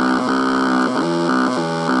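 Buzzing electronic tones from a solvent pump's stepper motor, picked up by an electric guitar pickup. The pitch pattern switches every few tenths of a second in a repeating rhythm.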